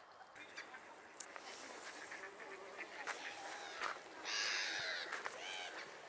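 Ducks and other waterbirds calling, short scattered calls overlapping one another, with a brief louder rush of noise just past four seconds in.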